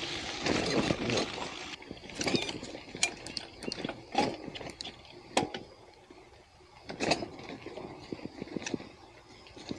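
Loaded bicycle's tyres crunching over a gravel dirt track with a steady rushing noise, which stops abruptly about two seconds in; after that, irregular knocks, clicks and rattles as the bike rolls over bumpy ground.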